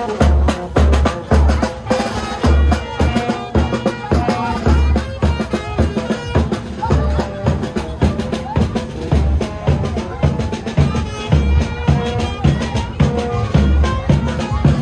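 Marching band playing in the street: a steady bass drum beat under fast snare drum strokes, with a melody on top.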